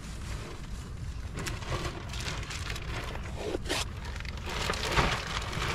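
Blue painter's tape being peeled off a boat hull along a freshly sealed splash rail: a crackling rip in several short bursts, the loudest a little past the middle, over a steady low rumble.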